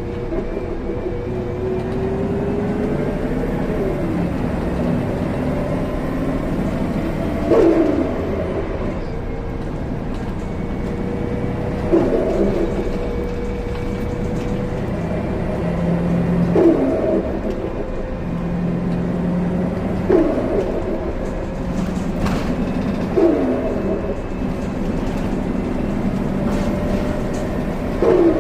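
2014 Gillig Low Floor BRT Plus CNG bus running, a steady engine and drivetrain drone with a falling whine in the first few seconds. About every four seconds a short falling sound starting with a click cuts through, six times in all.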